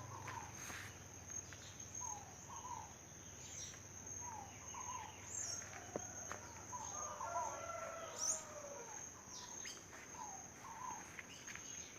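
Backyard birdsong: a scaled dove (fogo-apagou) repeating its short paired call every second or two, with quick high chirps from other birds. A steady high-pitched insect drone runs underneath, and a brief burst of mixed calls comes around the middle.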